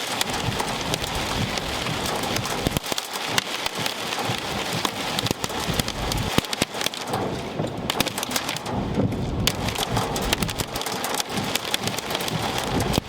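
Hail mixed with rain pelting a car, a dense, continuous rattle of sharp stone impacts over the rain's hiss.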